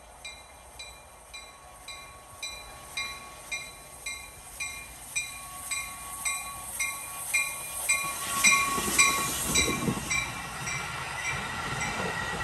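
Locomotive bell ringing about twice a second on an approaching train. The bell grows louder as the train arrives, and engine and wheel noise swells as it passes about nine seconds in.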